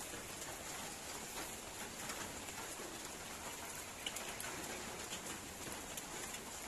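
Light rain falling: a faint, even hiss with a few scattered drip ticks.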